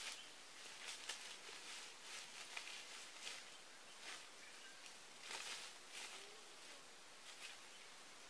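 Faint rustling of leaves and twigs with soft, irregular footsteps in leaf litter as someone moves through undergrowth, over a low outdoor hiss.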